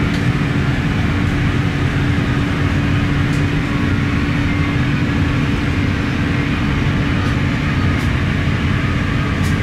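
Steady cabin noise inside a parked Airbus A350-900: rushing ventilation air with a low, even hum from the aircraft's air-conditioning supply.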